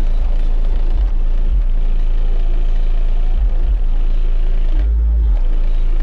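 Nine Sundown Audio X8 8-inch car subwoofers in a Chevy Trailblazer playing deep, very loud bass notes in pulses, with a longer, heavier bass hit about five seconds in. Heard from outside the SUV.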